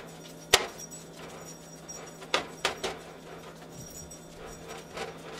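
Spatula knocking and scraping against a frying pan while ground venison is stirred and broken up. There is a sharp knock about half a second in, three quick knocks a little past two seconds, and another near the end.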